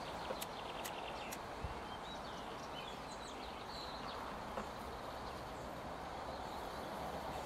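Steady outdoor background hiss, with a few faint bird chirps in the middle and a few light clicks in the first second.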